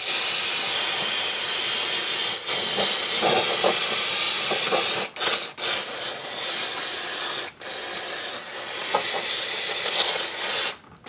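Aerosol can of brake cleaner spraying in long hissing bursts onto a drum brake's metal backing plate to wash off grease and brake dust. The spray breaks off briefly about three times and stops shortly before the end.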